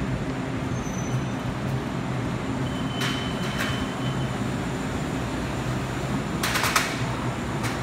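TRA EMU800 electric train standing at the platform, its onboard equipment giving a steady low hum. Two sharp clicks come about three seconds in, and a quick rattle of knocks, the loudest sound, comes near the end.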